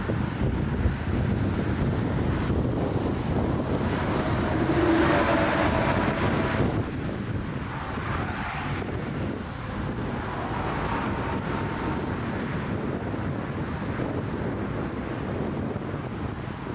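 Strong gusty wind buffeting the microphone, with a jet aircraft's engines heard through it: whining tones, including a high thin whine, swell and fade about five seconds in.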